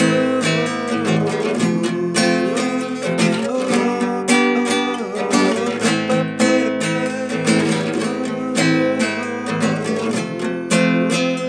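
Acoustic guitar being strummed steadily in a song's accompaniment.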